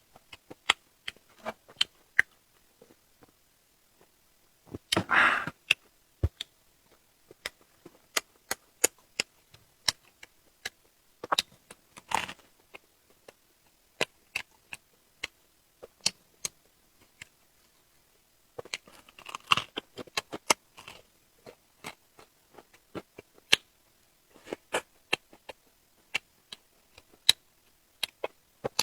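Close-miked eating of shrimp and octopus: scattered sharp clicks and crunches of chewing, shells cracking and flesh tearing, with a longer, louder crunch about five seconds in and another around nineteen seconds.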